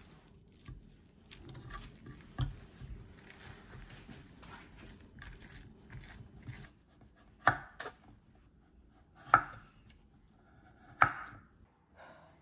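A chef's knife cutting kabocha squash on a wooden cutting board: light cuts and scrapes, then three hard chops through the squash into the board, a little under two seconds apart, in the second half.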